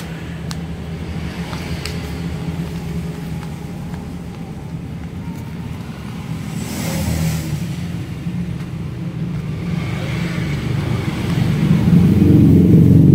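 A low, steady engine hum of a motor vehicle that grows louder near the end, with crinkling paper twice as a paper-wrapped rice packet is opened.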